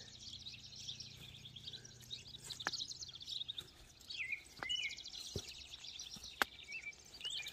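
Faint birds chirping and calling, with a few soft clicks scattered through.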